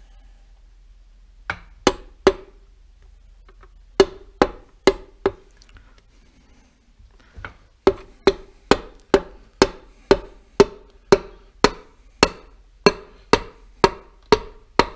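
Sharp knocking taps as the piston is driven down into the Clio 182 engine's cylinder bore, a few at a time at first, then a steady run of about two taps a second until the piston is seated. Each tap rings briefly in the metal block.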